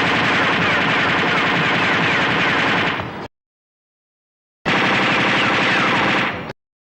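Action-movie machine-gun fire sound effect: one long continuous burst of about three seconds, then dead silence, then a second burst of about two seconds.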